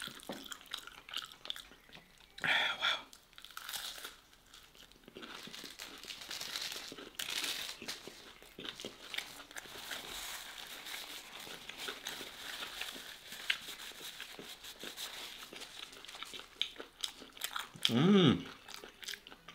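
Close-miked chewing and crunching of steak fat and gristle, with a paper napkin crinkling. A brief voiced sound comes about two seconds in and again near the end.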